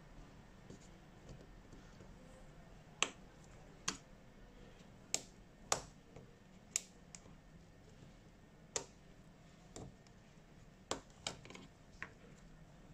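Sharp, irregular clicks and taps, about ten over several seconds, from small hand tools and parts being handled while a Samsung Galaxy S8 smartphone is worked on during repair.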